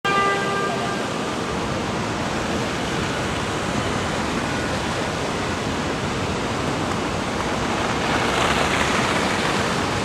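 Steady traffic noise of vehicles on a slushy, snow-covered street, with a vehicle horn sounding for about a second at the start. Near the end a louder hiss swells up as a vehicle passes through the slush.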